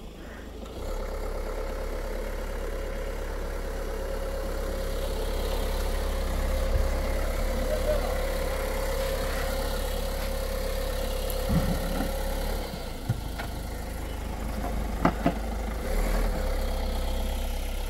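Ford Figo Aspire's engine running steadily at low revs as the car creeps over a rutted dirt track, with a few sharp knocks in the last third.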